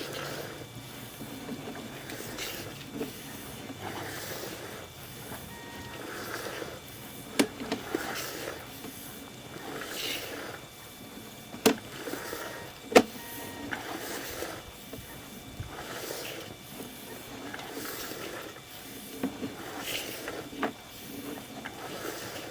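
Sewer inspection camera on its push cable moving through the sewer line, with irregular scraping and rattling and a few sharp knocks, the loudest about thirteen seconds in.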